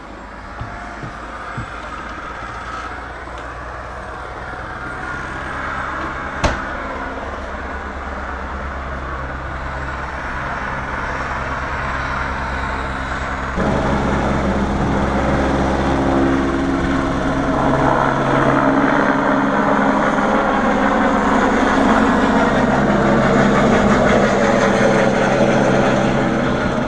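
Helicopter flying overhead, a steady low rotor and engine drone that grows louder, with a sudden jump in loudness about halfway through. The helicopter has a bucket slung beneath it, which the rider takes to be for fighting a fire. One sharp click about six seconds in.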